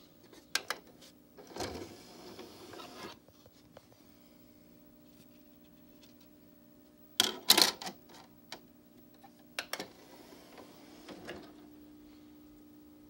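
DVD player disc tray in use: a button click, then the tray motor whirring briefly as the tray slides out. Later a plastic disc clatters sharply into the tray, which is the loudest moment, followed by a couple of clicks and the tray motor running again more faintly as it closes.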